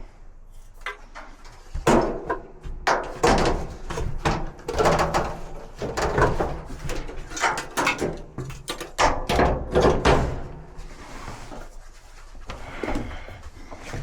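Irregular clunks and knocks of dryer parts being handled during repair, coming thick and fast through the middle and easing off near the end.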